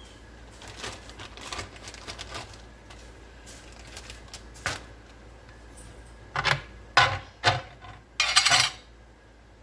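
Kitchen handling noise: light clicks and taps of utensils and dishes, then several sharper knocks and a short rattle near the end.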